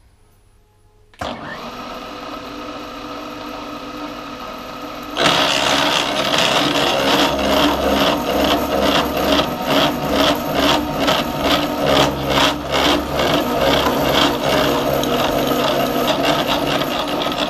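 Milling machine spindle starting up about a second in and running steadily. A few seconds later the thin disc cutter bites into the metal wheel blank on the dividing head, milling a tooth slot. The cut is louder and pulses rapidly and evenly as the cutter's teeth strike the work.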